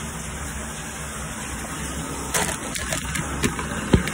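Shower water running with a steady hiss, with a few short knocks and clicks in the second half.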